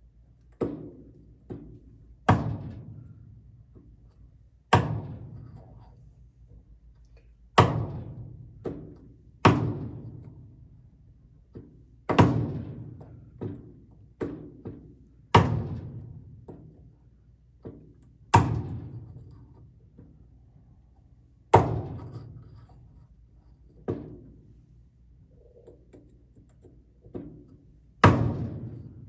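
A chisel being struck to cut into a wooden hole-saw disc, likely the recess that will hold a nut: about a dozen sharp knocks, spaced irregularly a second or two apart, each ringing out briefly.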